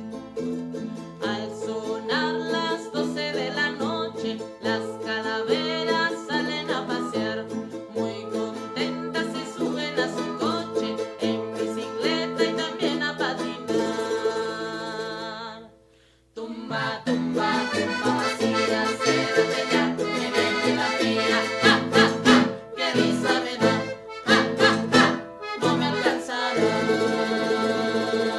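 Background music led by accordion with guitar accompaniment, breaking off for a moment about halfway through before the music starts again.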